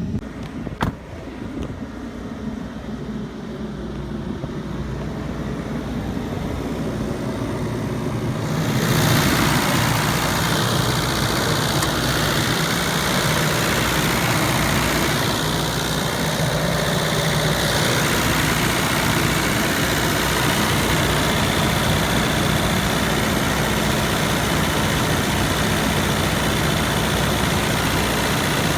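An engine running steadily, with a single sharp knock about a second in. At about nine seconds a louder, even rushing noise comes in and holds.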